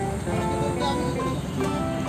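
Background music: a melody of short held notes that follow one another without a break.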